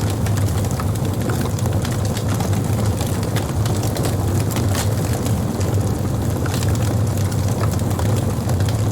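Wood campfire burning, crackling with many small sharp pops and one louder pop about five seconds in, over a steady low rumble.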